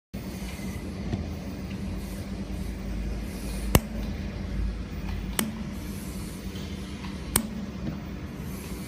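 Handheld laser welding machine running with a steady low hum and faint hiss, broken by three sharp clicks a couple of seconds apart, the first the loudest.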